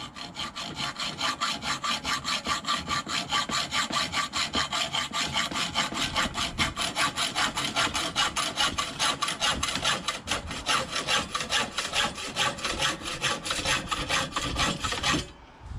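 Hacksaw cutting through metal conduit held in a pipe vise: steady back-and-forth strokes, about three a second, stopping near the end.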